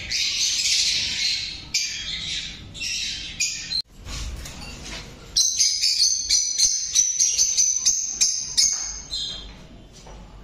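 A flock of lovebirds in a cage chattering: shrill overlapping squawks and calls, a break about four seconds in, then a quick run of sharp high chirps that fades near the end.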